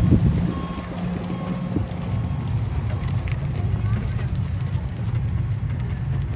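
Low, steady engine rumble of a small tourist road train, heard from on board as it moves along.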